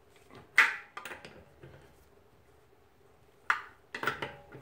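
Breaker bar socket clanking onto wheel lug nuts as they are checked for tightness: a cluster of sharp metal clanks about half a second in and another near the end.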